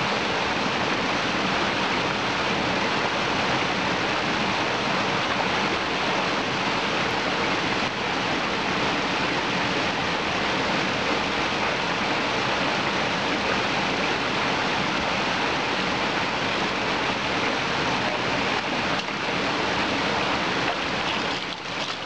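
Steady rushing of a forest stream, an even hiss of running water.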